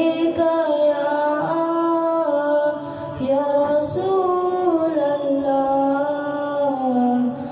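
A boy singing a naat, a devotional poem in praise of the Prophet, unaccompanied into a handheld microphone. He holds long notes that glide from one pitch to the next.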